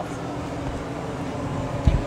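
Steady low mechanical hum under a general background noise, with a brief low thump near the end.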